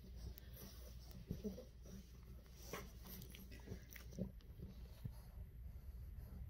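A bulldog puppy chewing, faint, with a few short soft clicks and crunches scattered through.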